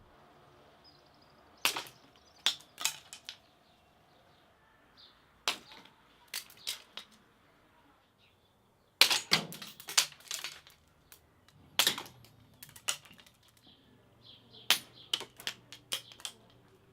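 Wisteria seed pods, dried by the sun's heat, bursting open with sharp cracks and snaps, some single and some in quick runs of several.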